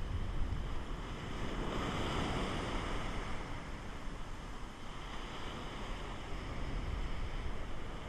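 Ocean surf washing up the beach, with wind buffeting the microphone. A wave's wash swells to a loud hiss about two seconds in and fades, and a weaker wash follows later.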